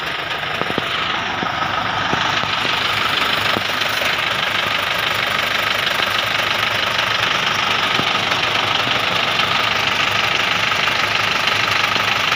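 A machine van's diesel engine running steadily with a fast knocking beat, growing a little louder over the first few seconds.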